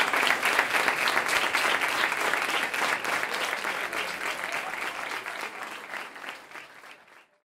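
Audience applauding, a dense run of many hands clapping that tapers off over the last few seconds and then stops abruptly.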